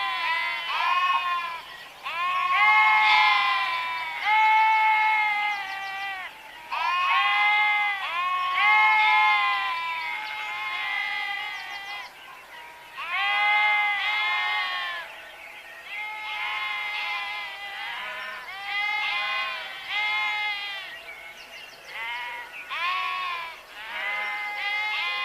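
Several sheep bleating over and over, their calls at different pitches overlapping one another, with only brief lulls.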